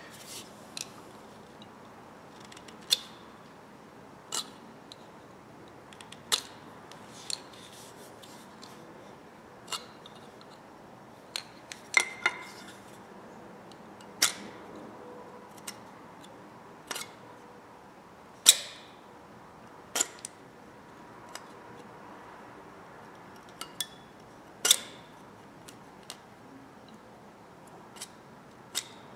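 Light, sharp clicks and taps, irregular, one every second or two, as a small knife point works at the wooden handle in the eye of a forged steel hatchet head.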